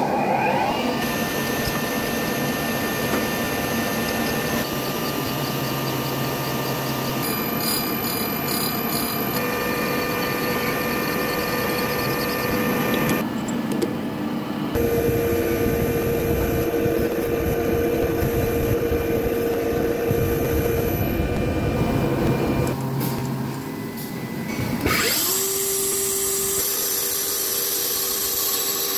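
Machine tools running in a workshop: a grinding machine's spinning grinding wheel and motor give a steady whine with hiss. The pitch of the whine changes abruptly several times as the machine setup changes.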